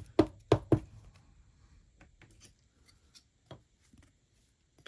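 Trading cards in clear plastic sleeves being handled and tapped together: four quick sharp taps in the first second, then a few faint clicks.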